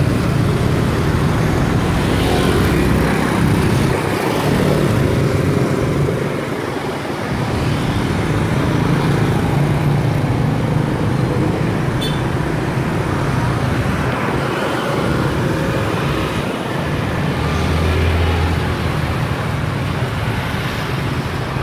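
Dense street traffic heard while riding along in it: the steady running of many motorbike and scooter engines around, with road noise.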